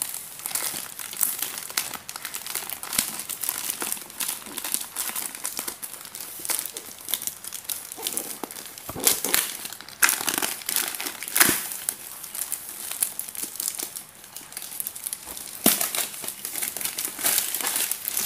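Plastic courier mailer bag crinkling and crackling as hands tear it open and pull out a folded plastic tarpaulin. Irregular rustling throughout, with a few louder sharp crackles from about nine seconds in.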